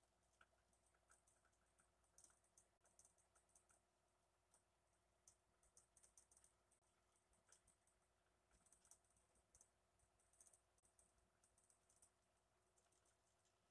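Near silence, with faint irregular clicking.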